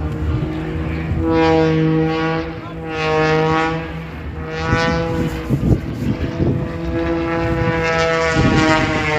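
Propeller aircraft's engine drone: a steady, pitched hum that swells and fades several times.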